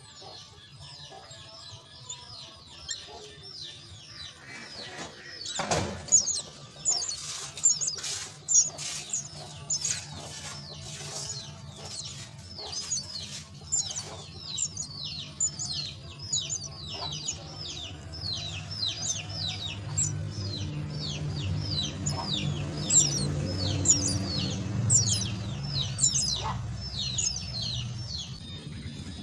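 Myna chicks begging: rapid, repeated high cheeps that slide down in pitch, about three or four a second, starting about six seconds in just after a thump. A steady low hum runs underneath.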